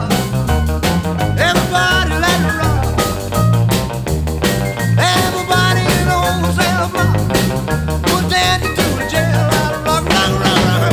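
Background music with a steady beat and a bass line stepping between notes.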